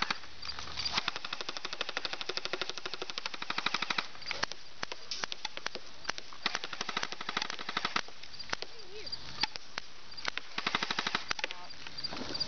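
Airsoft guns firing: rapid strings of sharp shots in the first few seconds, scattered single shots after that, and another fast burst near the end.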